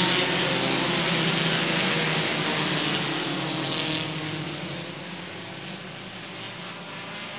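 A pack of compact touring race cars accelerating together on a restart, many engines running at high revs at once. The sound fades after about four seconds as the pack moves away.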